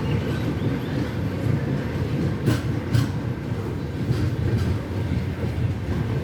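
Passenger train coaches rolling along the track with a steady low rumble, and two sharp wheel clicks over a rail joint about half a second apart, a little before the middle.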